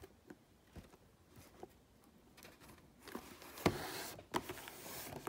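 Hands handling and turning a cardboard display box with a clear plastic window: a few light taps, then from about three seconds in a stretch of rustling and rubbing with a sharp knock.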